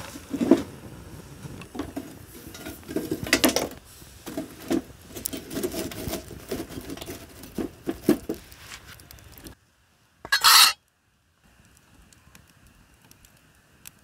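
Split firewood knocking and clattering against a stainless steel Firebox G2 folding wood stove as logs are fed into the fire, in irregular knocks. The sound cuts off about nine and a half seconds in, followed by one short noisy burst and then a faint, quiet background.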